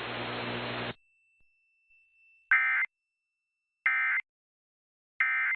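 Hiss of the broadcast audio cuts off about a second in. Then come three short, identical bursts of Emergency Alert System SAME digital data tones, about 1.3 seconds apart: the end-of-message code that closes an EAS alert.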